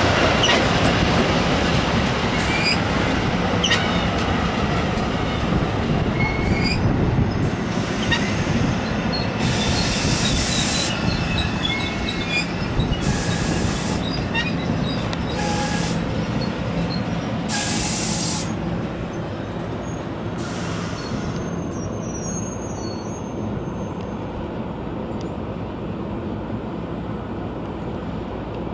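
Double-deck passenger coaches rolling past on steel rails: a steady rumble with clicks of the wheels over the rail joints and about five short, high-pitched wheel squeals in the middle. The sound thins out and gets quieter near the end as the last cars go by.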